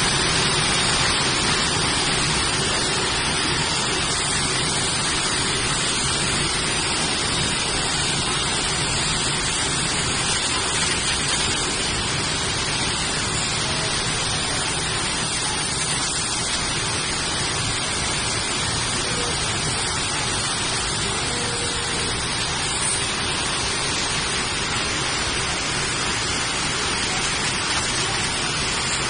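Many circular looms weaving plastic mesh tubing, running together as one loud, steady, dense machine noise with no let-up.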